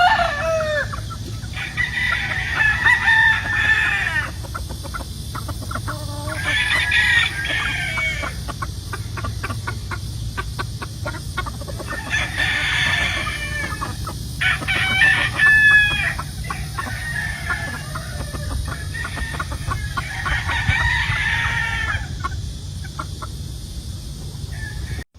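Roosters crowing, about six crows a few seconds apart, with clucking in between.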